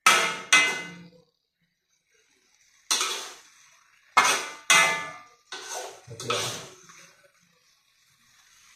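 Metal spatula scraping and knocking against a wok while stir-frying, about seven sharp strokes that each ring briefly: two at the start, one about three seconds in, then a quick run of four between four and seven seconds.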